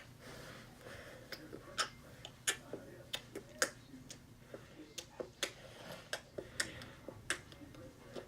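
A dozen or so light, sharp clicks and taps at uneven intervals.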